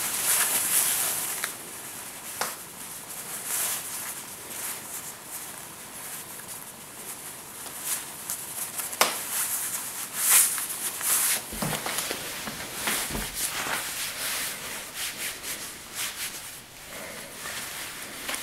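A necktie's fabric sliding and rubbing against itself and a shirt collar as the tie is knotted, heard very close: irregular swishes and rustles, with a couple of dull bumps about two-thirds of the way through.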